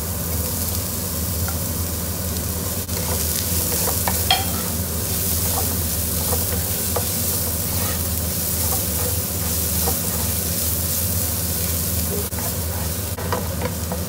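Diced red onion sizzling in hot oil in a non-stick frying pan, with a steady hiss, while a wooden spatula stirs and scrapes it around the pan in short strokes.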